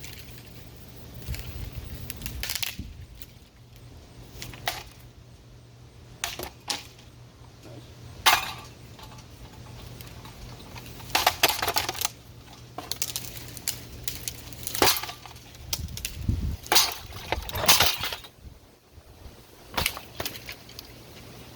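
A ceiling fan being smashed: about a dozen sharp blows and clattering breaks, one to three seconds apart, over a low steady hum.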